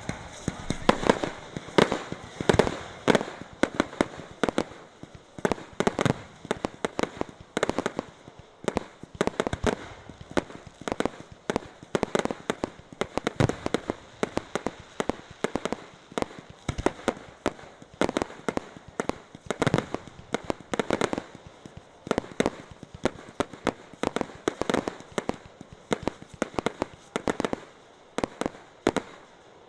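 Fireworks display: aerial shells bursting in quick, continuous succession, several sharp bangs a second with no let-up.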